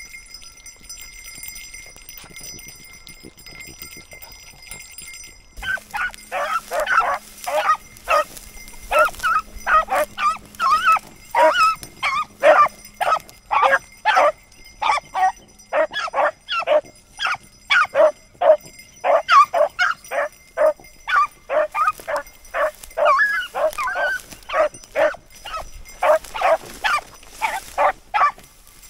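Beagles baying in a quick run of barks, about two a second, starting about five seconds in: the voice hounds give while trailing a rabbit.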